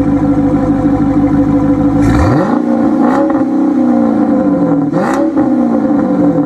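2015 Dodge Challenger R/T's 5.7-litre Hemi V8 exhaust idling, then revved twice, about two seconds in and again about five seconds in. Each rev rises quickly and falls back to idle.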